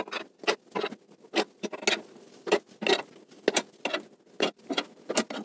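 Car scissor jack being cranked down by hand under the weight of a heavy cabinet: a steady run of short metallic clicks and rasps, about two or three a second, from the turning crank handle and screw.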